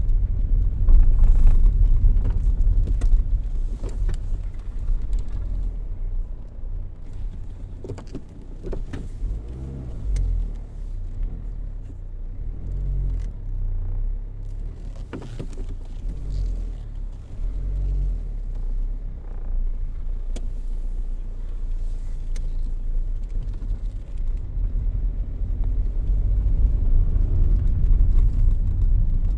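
Car driving: a low engine and road rumble that swells and eases, quieter through the middle and louder again near the end, with a few light clicks or knocks.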